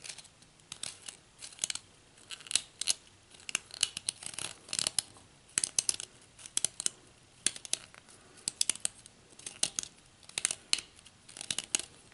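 Wire brads set in a wooden dowel scraping a ring groove into an acrylic cigar holder as the holder is turned against them by hand: a run of short, irregular scratching strokes.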